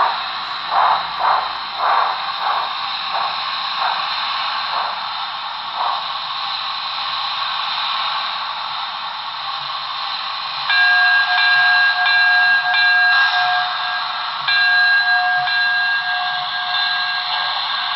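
Sound system of a Broadway Limited HO-scale Southern Pacific steam locomotive model (Paragon 3) playing steam exhaust chuffs that slow and fade over the first several seconds, then a steady steam hiss. From about eleven seconds the whistle sounds, several tones together, in a series of short blasts in two groups.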